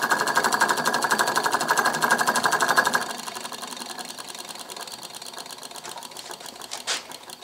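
Homemade magnet-type electric model engine running fast on a 12 V battery: a rapid, even clatter as the electromagnet coil pulls the armature and the cam-worked micro switch makes and breaks. About three seconds in it drops much quieter but keeps running.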